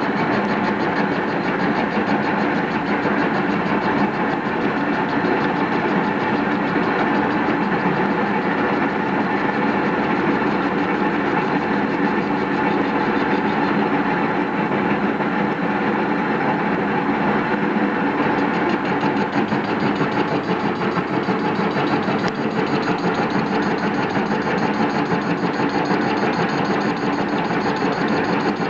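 Metal lathe running steadily with the even hum of its motor and gearbox while it faces the end of a metal blank.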